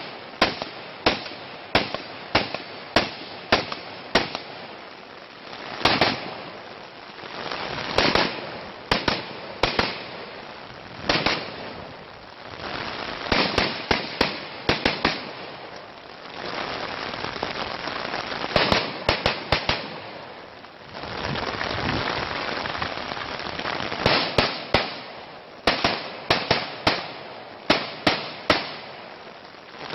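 Rifle shots fired in quick strings, about one every half second to a second, with pauses of a few seconds between strings. Heavy rain hisses steadily underneath.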